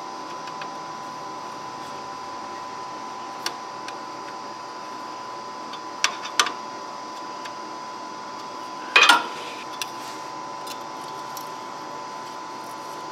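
Sparse metal clicks and clinks from a wrench and feeler gauge working on the Scag Tiger Cat mower's PTO clutch as its air gap is backed off and rechecked, with a short clatter about nine seconds in. A steady background hum with a faint whine runs beneath.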